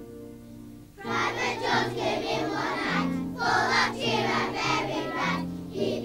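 Children's choir singing a song over instrumental backing. The backing plays alone at first, and the voices come in about a second in.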